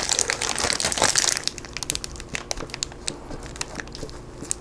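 A block of extra sharp cheddar being grated on a multi-sided cheese grater: quick rasping strokes, dense for about the first second and a half, then lighter and more spread out.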